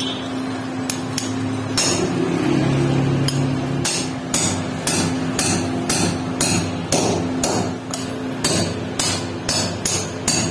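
Repeated metal-on-metal hammer blows on a steel rod set inside a hatchet head's eye, driving out a stuck piece of old iron pipe handle. The strikes come slowly at first, then settle into a steady run of about three a second.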